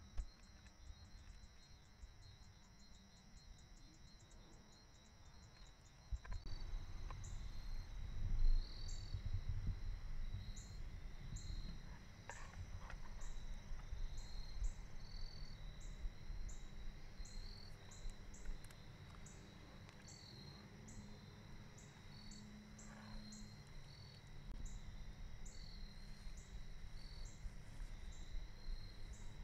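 Insects calling steadily in the woods: a continuous high trill with a regular high chirp repeating over and over, rapid at first and slower after about six seconds. A low rumble comes in about six seconds in and runs under the insects.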